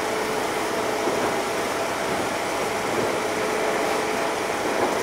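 Running sound of a JR Central 211 series 5000-subseries electric multiple unit, heard from inside the front car: a steady rumble and hiss with a faint steady tone over it.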